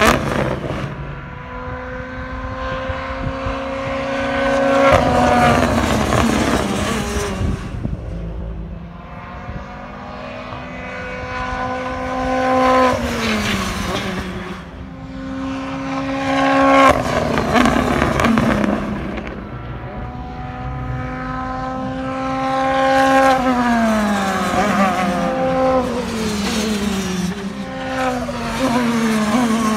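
Turbocharged four-cylinder BTCC touring cars passing at speed one after another, several in turn. Each engine note rises through the gears and then drops in pitch as the car goes by, with sharp pops and crackles from the anti-lag system.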